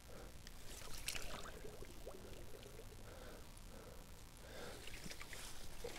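Faint water sloshing and splashing at the bank as a common carp is released from a landing net in the shallows and swims away, with the net being handled in the water.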